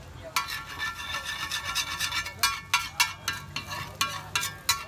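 Metal spatula scraping and striking a large flat griddle while working an egg mixture, in quick uneven strokes with a ringing metallic edge. The strokes start about a third of a second in and grow sharper in the second half.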